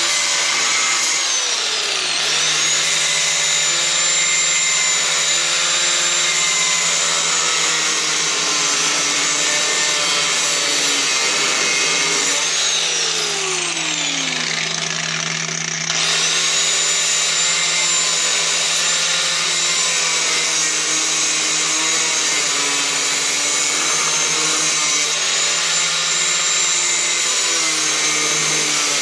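Small corded grinder with a cut-off wheel running at high speed, with a steady high whine, cutting through the outer sheet-steel panel of a truck's cab corner and rocker. About halfway through the whine drops away and winds back up.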